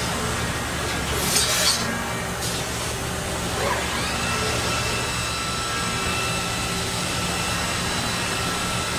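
Mazak Variaxis i-700 five-axis machining centre ball-end milling metal with a 10 mm ball endmill, spindle at 7000 rpm: a steady machine hum and cutting hiss. Short bursts of hiss come just over a second in, and a whining tone rises about three and a half seconds in and then holds steady.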